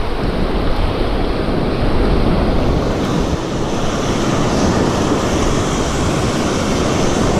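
Ocean surf breaking and washing up the beach, with wind rumbling on the microphone. The hiss of the wash grows stronger about a third of the way through.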